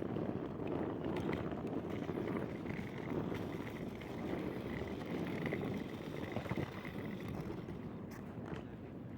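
Steady background noise of an airport terminal hall, with a few faint clicks and knocks.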